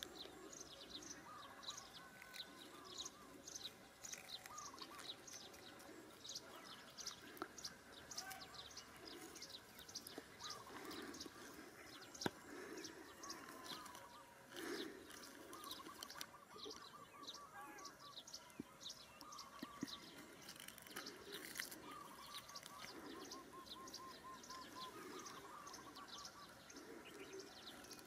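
Faint birdsong: a steady run of short high chirps, about three a second, with a few quick lower trills. A single sharp click about twelve seconds in.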